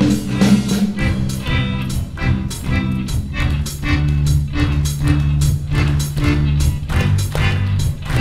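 Small jazz combo playing an instrumental swing passage live: drum kit keeping a steady beat under bass and electric guitar.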